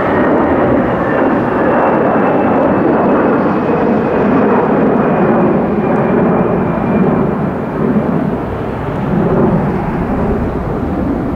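An Airbus A320-214's twin CFM56-5B turbofans at takeoff-climb thrust, a loud steady jet roar. A faint high whine in it slowly falls in pitch as the airliner climbs away.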